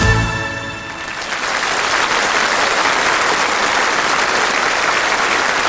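A song's final chord fades out in the first second, then an audience applauds steadily.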